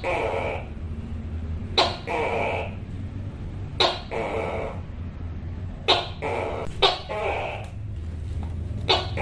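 Tokay gecko calling its repeated two-part "to-kay" call. Each call is a sharp, clipped first note followed by a longer, lower second note, about one call every two seconds, with two coming close together past the middle.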